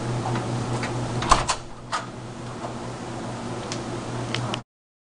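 Steady low hum of room noise with three sharp clicks or knocks a little over a second in, the first the loudest, and a few faint ticks later. The sound cuts off abruptly into silence near the end.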